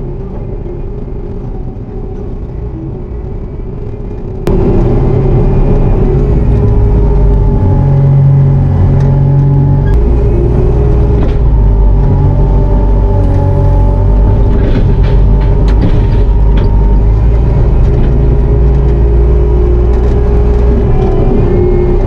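Bobcat T650 compact track loader's diesel engine running under load, heard from inside the cab, with a wavering whine over a low rumble. It gets abruptly louder about four and a half seconds in and stays loud.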